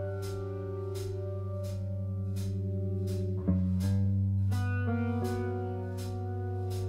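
Instrumental passage of a live rock band: electric guitar and bass guitar hold ringing chords that change about halfway through, over drums keeping a slow, steady beat of regular cymbal hits.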